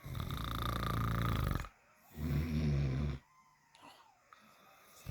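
Loud snoring: a long fluttering snore, then a shorter one about half a second later, and after a quiet pause the next snore begins right at the end.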